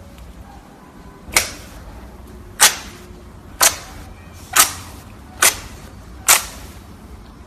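Six sharp slaps, roughly one a second, each short with a quick fade, as slime is slapped by hand.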